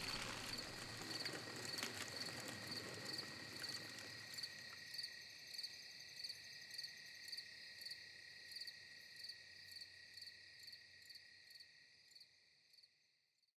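Crickets chirping in a steady, even rhythm of a little under two chirps a second, slowly fading away to nothing near the end. In the first second, the low tail of a boom dies away under them.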